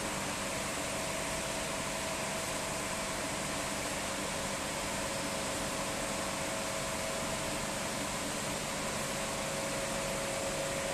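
Steel roll-forming machine running, a steady mechanical hum and hiss with a faint steady whine.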